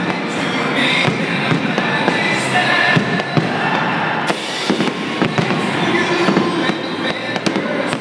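Aerial fireworks shells bursting in quick succession, a steady stream of bangs and crackles with one louder burst about four seconds in, over music playing in the background.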